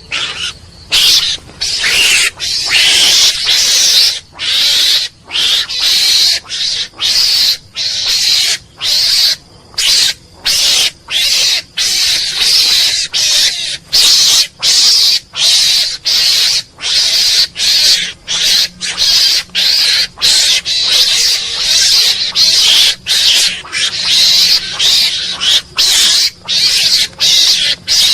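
Mongoose calling: harsh, noisy calls repeated over and over, a little more than one a second, each cut off by a short break.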